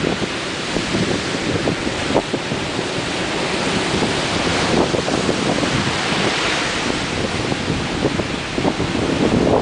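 Ocean surf breaking and washing in continuously, swelling and easing as waves come in, with wind buffeting the microphone.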